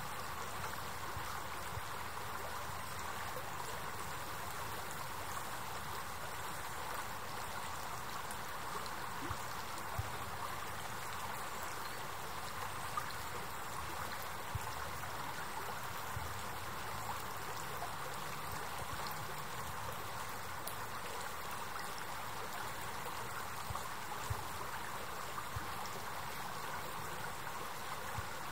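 River water flowing steadily: an even, continuous rush and babble with a few brief faint ticks.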